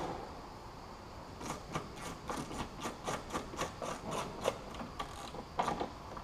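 Socket ratchet wrench with an extension being worked in short strokes, its pawl clicking about four times a second from about a second and a half in until near the end.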